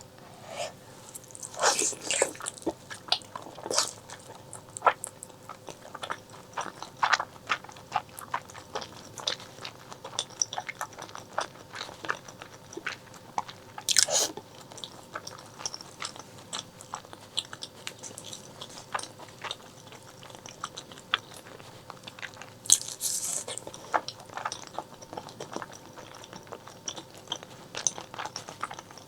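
Close-miked eating of braised pork leg: steady chewing and biting with many small wet clicks, and a few louder bites spread through.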